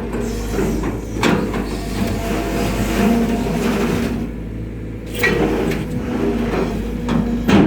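Kobelco Yutani SK 120 excavator's diesel engine running steadily under hydraulic load, with sharp knocks every few seconds.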